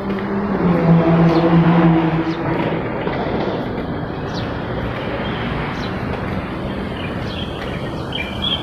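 Road traffic, with a motor vehicle engine passing that is loudest in the first two seconds or so, then a steady traffic rumble. A few faint bird chirps come through over it.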